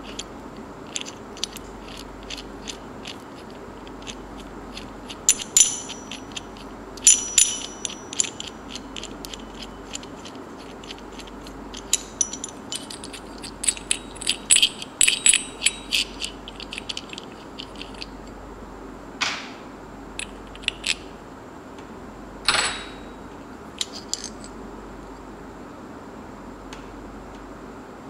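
Irregular metallic clicks and ringing clinks from a steel Hyundai Elantra XD air-conditioning belt pulley and its through-bolt being handled and turned over, busiest in the first half, with two short scrapes later on.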